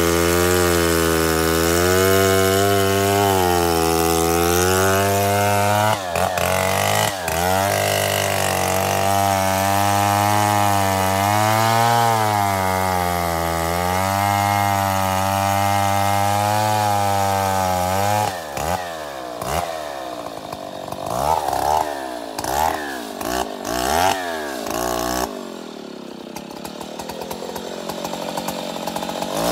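Stihl 070 two-stroke chainsaw cutting into a large tree trunk under load, its engine note wavering as the bar bites, for about eighteen seconds. Then it is eased off and revved in short blips, and drops to a quieter idle a few seconds before the end.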